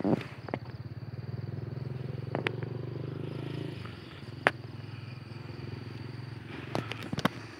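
An engine running off-screen with a steady, fast throb that drops in level about four seconds in. Insects chirr faintly throughout, and a few sharp clicks stand out.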